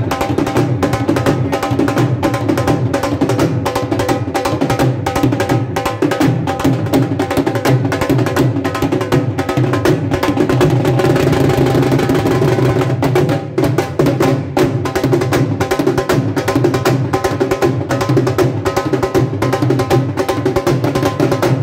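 Dhol drum played in a fast, steady beat for dancing, with sharp strokes repeating evenly.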